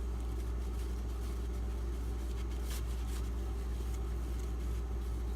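A steady low hum, with two faint, brief scrapes near the middle: a steel knife edge stroked on a 500 grit water stone.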